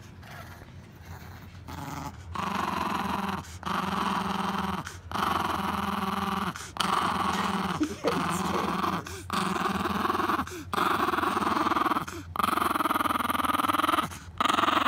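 Chihuahua growling, one long growl after another with a short break at each breath, starting about two seconds in.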